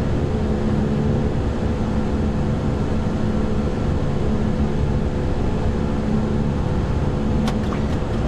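Steady flight-deck noise of an Airbus A340-300 climbing after takeoff: an even rush of air and engine noise with a constant low hum underneath. A couple of light clicks come near the end.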